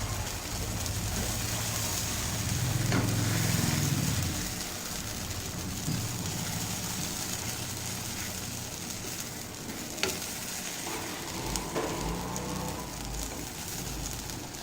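Moong dal chilla batter sizzling on a hot griddle over a low flame, a steady frying hiss. A low hum runs through the first few seconds, and a few sharp clicks come about 3, 10 and 12 seconds in.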